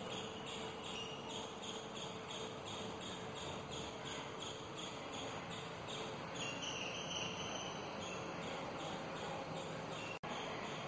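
Insects chirping in an even, repeating rhythm over a steady background hiss, with a brief higher call about six seconds in.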